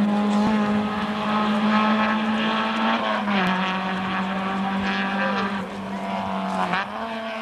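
Rally car engine running hard at high revs as the car accelerates along the stage. Its pitch drops and climbs again at two gear changes, about three and a half seconds in and near the end.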